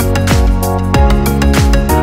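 Background music with a steady beat: held synth chords over a kick drum and crisp high percussion.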